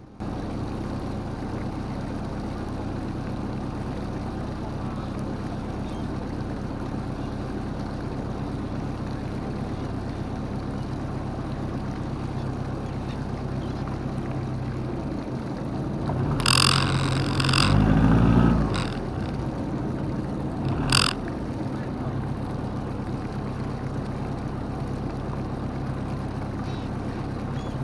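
Boat engine running with a steady hum. A short louder burst of sound comes about two-thirds of the way through, and a sharp knock follows a few seconds later.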